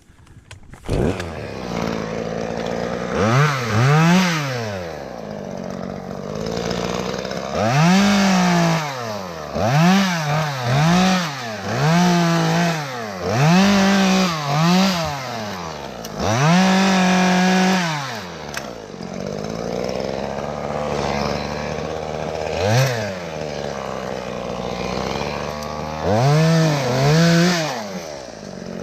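Chainsaw revved again and again, rising to full speed and holding there for a second or two at a time as it cuts wood, dropping back to idle in between.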